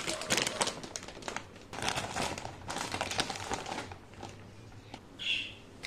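Thin plastic bread bag crinkling in bursts as it is handled and slices of sliced bread are pulled out, dying down after about four seconds.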